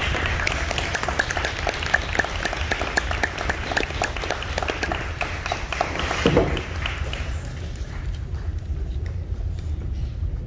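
Audience applauding, dying away about seven seconds in, over a steady low rumble.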